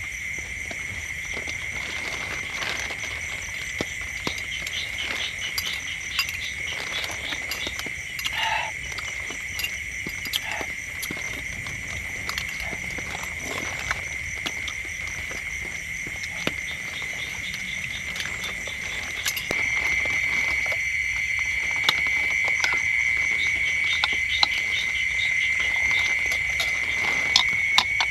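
Rain dripping and tapping irregularly, under a steady high-pitched chorus of calling animals that grows louder about two-thirds of the way through.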